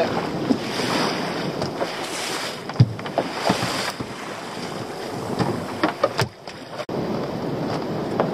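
Wind buffeting the microphone over sea water slapping against a small open boat's hull, with a few sharp knocks.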